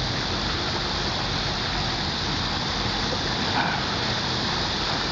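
Steady rushing noise of fast river current, with a faint low hum beneath it.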